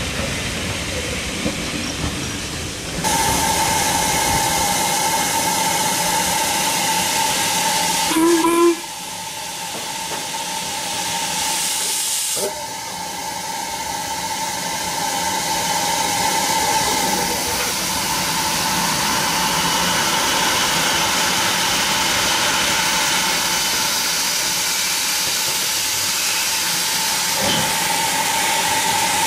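Steam hissing steadily from a standing tank steam locomotive, with a steady high tone through the hiss. It dips quieter for a few seconds about nine seconds in. For the first few seconds, railway coaches rumble past.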